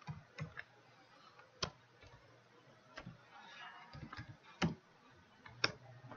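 Slow, uneven typing on a computer keyboard: single key clicks with pauses between them.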